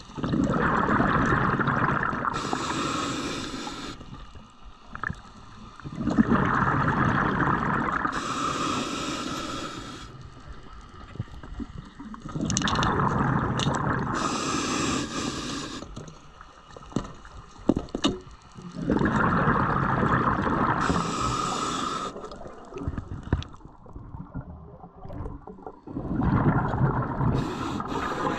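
A scuba diver breathing underwater through a regulator: each exhale's bubbles gurgle past the microphone for about three seconds and end in a short hiss of the regulator, in a steady cycle about every six to seven seconds, five breaths in all. A few sharp clicks sound about two-thirds of the way through.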